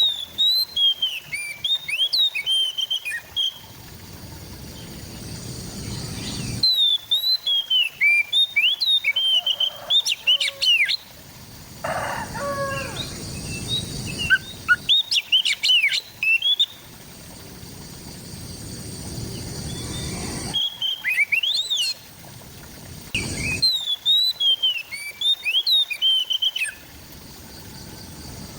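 Oriental magpie-robin (kacer) singing: phrases of quick, varied whistles, slurred notes and sharp chirps, coming in bursts of a few seconds with short pauses between them, over a steady background hiss.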